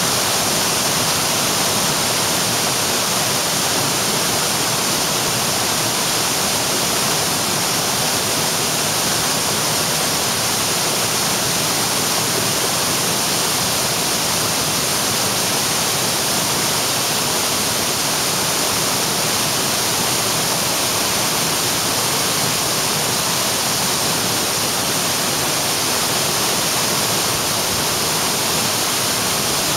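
Waterfall of about 40 metres: loud, steady, even rush of falling water with no break or change.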